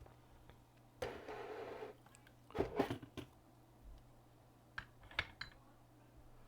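A brief scraping rustle about a second in, then scattered light clicks and clacks of small items being handled on a repair bench, over a steady low electrical hum.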